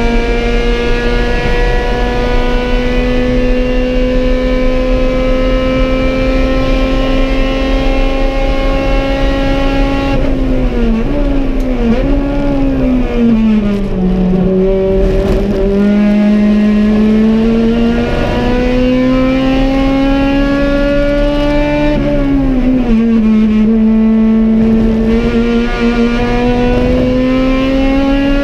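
Honda B18 four-cylinder engine of an EG Civic race car, heard from inside the cockpit. Its pitch climbs slowly for about ten seconds, then falls in several steps as it downshifts for a corner. It climbs again, drops sharply with an upshift about 22 seconds in, and climbs once more to another upshift at the end.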